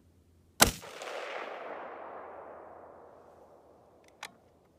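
A single rifle shot from a Ruger M77 bolt-action in 280 Remington, with a long rolling echo that fades over about three seconds. Near the end comes a short click as the bolt is lifted.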